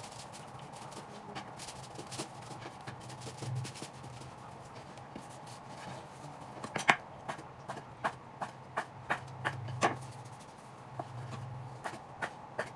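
Kitchen knife chopping a log of dumpling dough into pieces on a wooden cutting board: a quick, regular run of sharp knocks, two to three a second, starting about halfway through. Before it, soft handling of the dough on the board.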